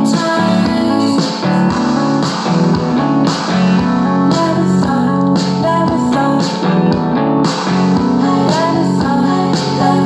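Guitar-led song played at a steady loud level through a JBL Charge-series portable Bluetooth speaker, as a sound test of the speaker.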